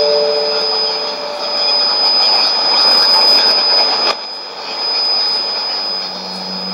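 Shortwave radio reception on a Sony ICF-2001D receiver: steady static and hiss with a constant high-pitched whistle, while a chord of lower test tones stops about a second in. The noise drops out briefly and suddenly about four seconds in.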